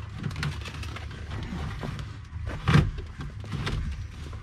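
Handling noise of hands working loose wiring under a car's dashboard: scattered small clicks and rustles over a low rumble, with one louder knock a little past halfway.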